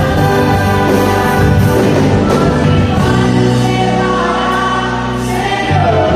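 Choir singing a gospel song with instrumental accompaniment, settling into a long held chord in the second half.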